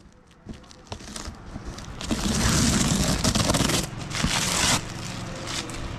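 Plastic packing tape being ripped off a cardboard carton: a few light scratches as fingers pick up the tape's end, then two long tearing rips, the first about two seconds in and a shorter one around four seconds.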